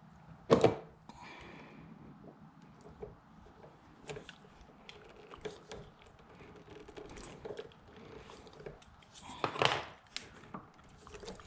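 Scattered clicks and knocks of car parts and tools being handled, with a sharp knock about half a second in and a louder clatter about nine and a half seconds in.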